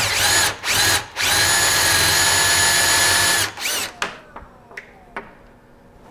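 Cordless drill boring a Forstner bit into an MDF spoilboard: a few short trigger bursts, then a steady high motor whine for a couple of seconds and one last short burst. The drill stops about four seconds in, followed by a few light knocks.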